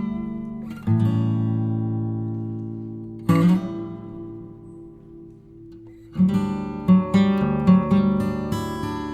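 Acoustic guitar music: two strummed chords left ringing, then from about six seconds in a steady strumming rhythm.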